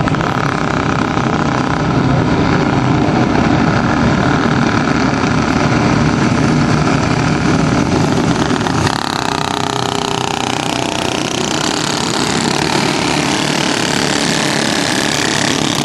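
A field of race car engines running hard at high revs, loud and unbroken. About nine seconds in the sound turns brighter, with pitch sweeps as cars go by.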